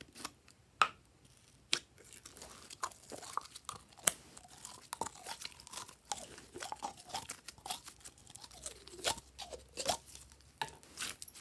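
Glossy blue slime being squeezed and pulled by hand out of a container, making sticky squelches with dense crackling pops. A few sharp clicks come in the first two seconds, before the crackling starts.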